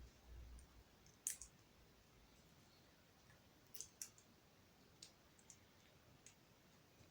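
Small plastic Lego pieces clicking as they are handled and pressed together: about half a dozen light, separate clicks a second or so apart over faint room tone.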